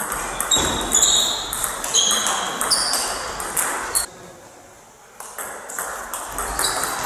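Table tennis ball clicking rapidly off bats and table in a doubles rally. The clicks stop about four seconds in, and after a quiet second a new point starts with more clicks.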